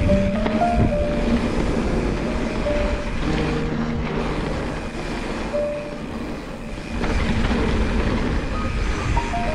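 Background music, a slow melody of held notes, over a steady rushing noise.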